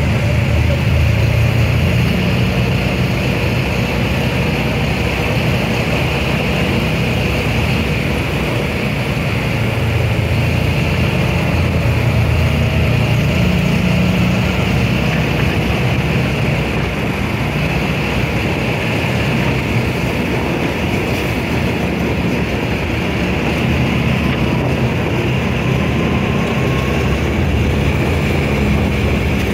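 On-board sound of a side-by-side off-road vehicle driving steadily along a gravel track: a continuous engine drone mixed with tyre and wind noise.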